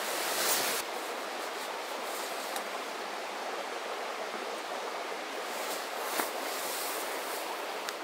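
Steady rushing of a river stream, with a brief rustle in the first second and a single faint click about six seconds in.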